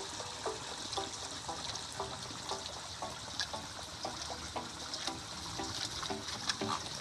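A flock of flamingos wading in shallow water and giving many short, low calls, several a second, over a steady trickle of water.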